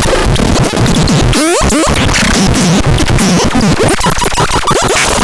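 Loud, chaotic electronic noise from the demoed sound-making device: harsh noise packed with rapid stuttering changes and short sliding pitch sweeps, up and down.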